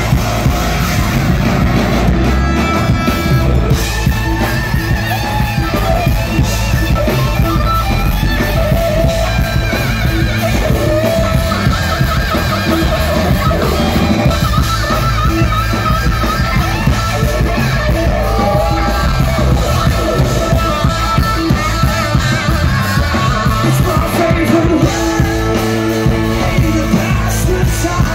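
A rock band playing live through a PA system: electric guitar, bass guitar, drums and keyboards, heard from within the audience.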